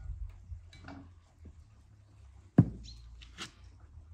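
Quiet handling sounds, then a single sharp knock about two and a half seconds in: a small glass bowl set down on a plastic-covered table.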